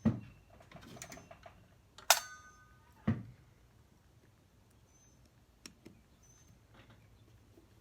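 Small metal carburetor parts handled on a workbench: a thump, a sharp metallic clink that rings briefly about two seconds in, another thump a second later, then a few faint ticks.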